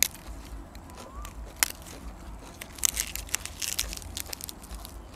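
A person chewing crunchy food close to the microphone: scattered sharp crunches and clicks, thickest about three to four seconds in.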